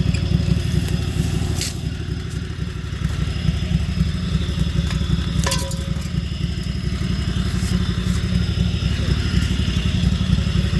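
Lawn mower engine running steadily through a truck exhaust pipe fitted in place of its muffler, a fast low pulsing drone. Two sharp clicks stand out, about two and five and a half seconds in.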